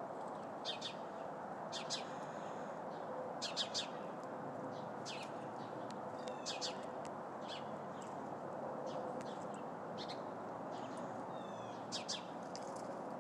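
Sparrows chirping: short, sharp chirps scattered throughout, some in quick runs, over a steady background noise.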